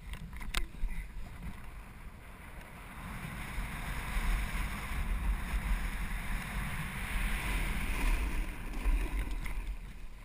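Snowboard sliding and carving down packed snow, the board's edges scraping the surface. The scraping gets louder about three to four seconds in as the rider picks up speed, with wind rumbling on the microphone throughout.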